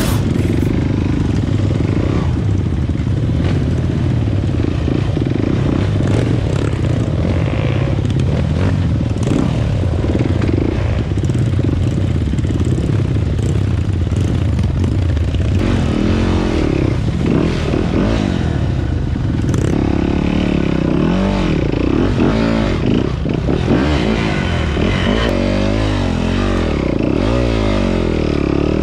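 Off-road dirt bike engine running, its pitch rising and falling again and again through the second half as the throttle is opened and closed.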